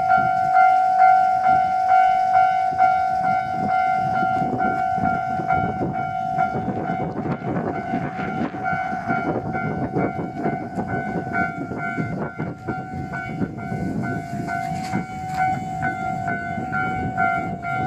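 Japanese level crossing warning bell ringing in an even, repeating rhythm of single-pitched clangs, over a steady low rumble.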